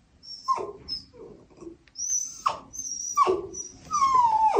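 Small dog whining on a leash, a series of short whines that each fall in pitch, the last one longer. It is impatient complaining at being made to wait to go out.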